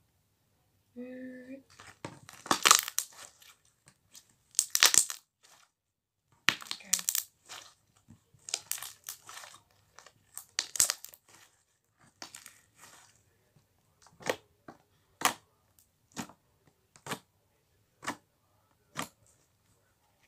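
Fluffy slime being squeezed and worked by hand for ASMR: crackling, squishing bursts, then a run of single sharp pops about one a second in the second half as air pockets burst. A short squeak-like tone sounds about a second in.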